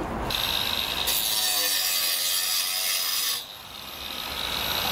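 Angle grinder running at full speed, grinding a groove into a flat roof tile: a harsh, steady grinding hiss with a high whine that starts just after the start, runs about three seconds and then stops.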